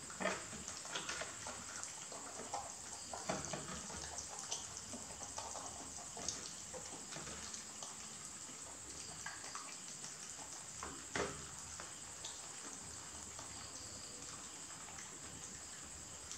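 Rabbits chewing soft, wet soursop fruit: many small irregular wet clicks and smacks, with a few louder ticks near the start, about three seconds in and about eleven seconds in.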